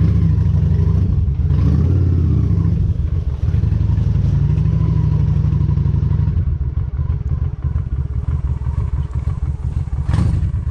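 Honda Shadow cruiser's V-twin engine running with a low, pulsing exhaust note. It is louder for about the first six seconds, then eases off. A short sharp knock comes near the end.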